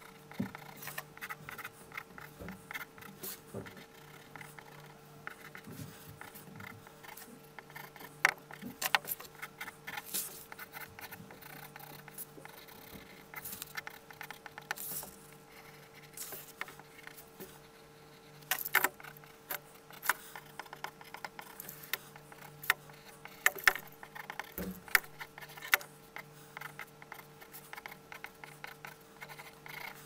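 Pencil scratching and tapping on paper in short, irregular strokes as a sketch is drawn, over a faint steady hum.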